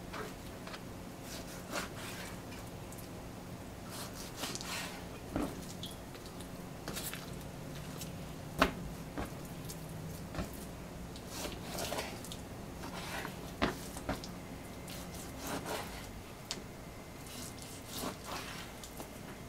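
Kitchen knife cutting raw chicken thighs on a plastic cutting board: scattered soft knocks of the blade on the board and wet handling of the meat, with one sharper knock about eight and a half seconds in. A faint steady hum lies under it.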